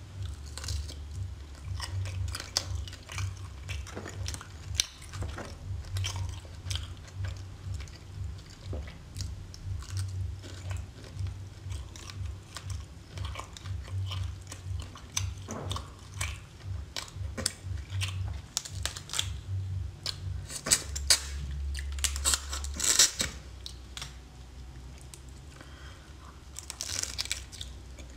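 Close-miked eating of seafood: steady wet chewing and mouth clicks. Louder crackling clicks come in about three quarters of the way through and again near the end.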